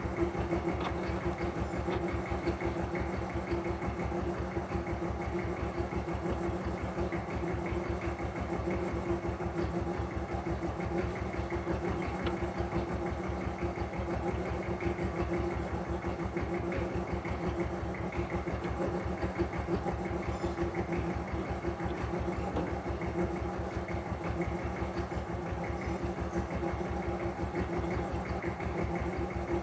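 An engine idling steadily, with an even, rapid beat that does not change.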